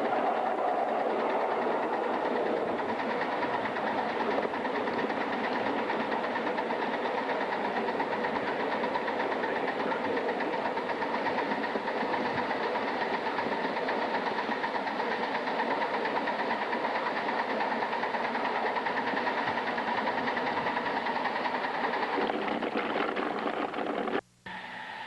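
Atlantic-type live steam locomotive working under its first steam, a steady hiss with a rapid, even beat. The sound breaks off briefly just before the end.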